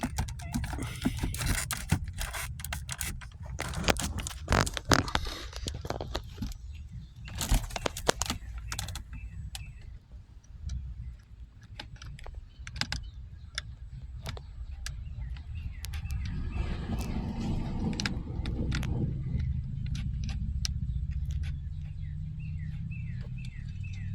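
Hands working on a car's plastic centre-console trim and shifter: irregular clicks, taps and light rattles of panels, small parts and tools, many of them in the first several seconds, with a longer stretch of rustling and scraping later on, over a steady low hum.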